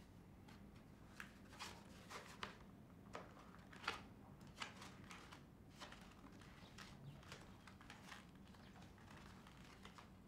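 Faint, irregular paper rustles and soft ticks of a spiral-bound notebook being handled and its pages turned, the sharpest about four seconds in.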